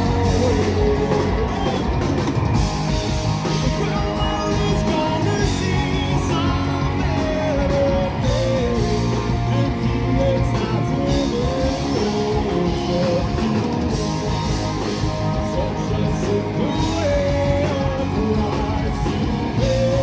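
Live rock band playing: distorted electric guitars over bass guitar and a full drum kit, with a lead line that bends up and down above the band.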